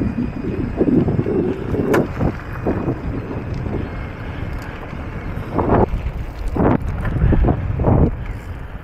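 Wind buffeting the microphone in irregular gusts over the low rumble of an electric mountain bike's tyres rolling along a rough sealed path.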